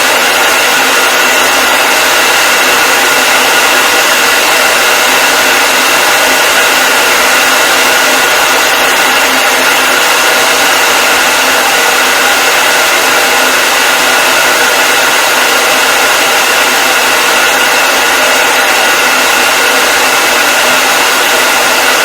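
Hair dryer running steadily: a constant rushing blow of air with a steady high whine from its motor and fan.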